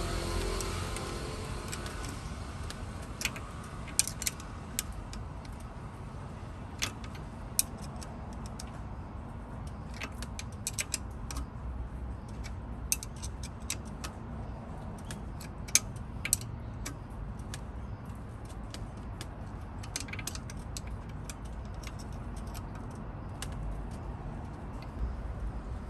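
Scattered light clicks and clinks at irregular intervals, a few much sharper than the rest, over a low steady rumble.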